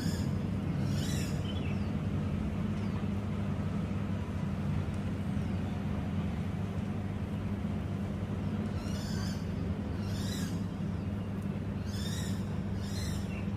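Wild birds calling: about six short, high, chirping phrases, a pair near the start and four more in the second half, over a steady low hum.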